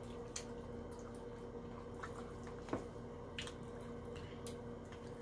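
Faint wet chewing and mouth smacks of someone eating barbecue ribs, a few scattered clicks over a steady low hum.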